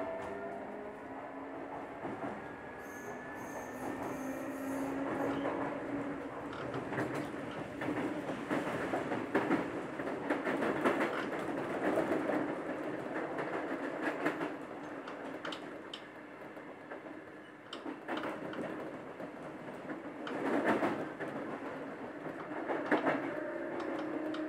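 Running sound of a Sotetsu 8000 series train with renewed traction equipment, heard from inside the car. The motor whine rises in pitch over the first few seconds as the train accelerates. Then comes steady rail running noise, with the wheels clacking over the rail joints; the motor tone comes back near the end.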